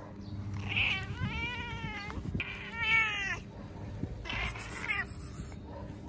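Hungry stray cat meowing three times for food, each meow drawn out for about a second with a rise and fall in pitch.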